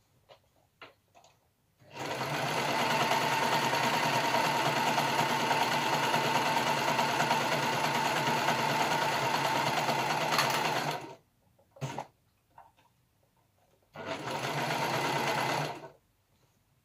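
An overlocker (serger) stitches a seam. It starts about two seconds in and runs steadily for about nine seconds, then gives a brief blip, then runs again for about two seconds.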